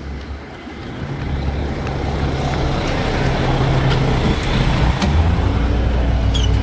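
Diesel container truck's engine idling with a steady low drone, growing louder over the first few seconds as it is approached and then holding steady.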